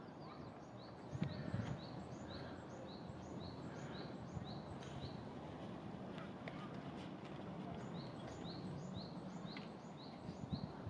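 A bird repeating short, high rising chirps, about two to three a second, in two long runs over steady outdoor background noise. A few low thumps, near the start and near the end, fit footsteps on steps.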